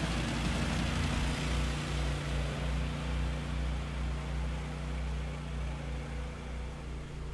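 Huntsman Pro articulated ATV's 30 HP engine running steadily under load at low speed as its large low-pressure tyres churn through deep muddy water. The sound slowly fades as the vehicle drives away.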